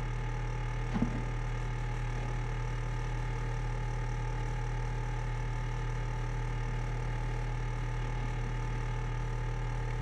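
A small electric appliance running steadily with a constant hum, with a faint knock about a second in.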